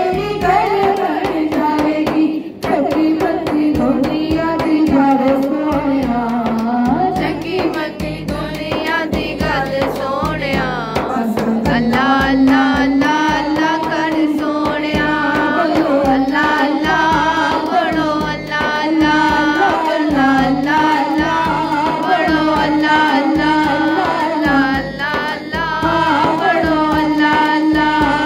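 A Punjabi naat sung by a single voice with a gliding, ornamented melody over a steady hand-drum beat.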